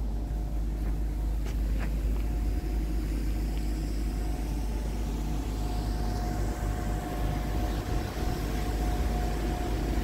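Scania R420 truck's inline-six diesel engine idling steadily, a low, even rumble with a thin steady whine above it.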